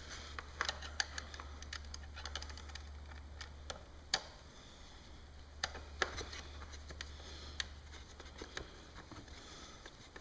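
Scattered light clicks and taps of small metal hardware being handled by hand, screws and lock nuts being fitted into a motorcycle fairing bracket, a few louder clicks in the middle. A steady low hum runs underneath.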